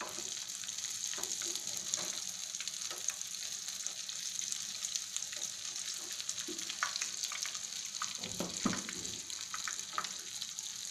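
Punugu (fermented idli/dosa batter fritters) deep-frying in hot oil: a steady sizzle with scattered crackles. A steel slotted spatula stirs them through the oil, scraping the pan now and then.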